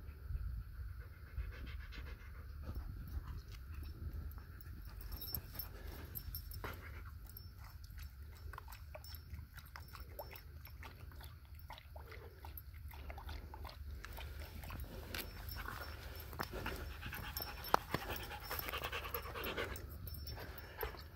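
A husky panting, then lapping water from a hollow in the rock with quick, irregular slurping clicks that grow busier near the end.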